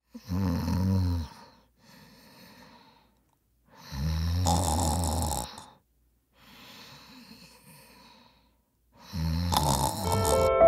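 A person snoring: three loud snores about four and a half seconds apart, each followed by a quieter breath out. Music comes in near the end.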